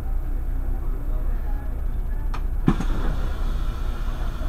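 Irisbus Crossway LE 12.8M city bus running, a steady low rumble, with a sharp click a little past halfway and a louder knock just after it.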